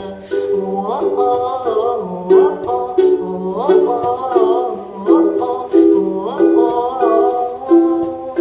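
Unplugged acoustic music: a plucked-string accompaniment playing a melodic phrase of held notes with sliding rises, between sung lines.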